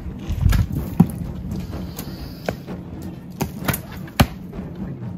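A traditional wooden bow and arrow being handled as the arrow is nocked and the bow drawn: a series of sharp clicks and knocks, the loudest about a second in and just after four seconds.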